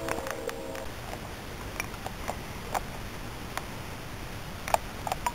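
Handling noise: scattered small clicks and rustles as plastic model horses are moved through grass, over a steady background hiss. A faint held tone fades out within the first second.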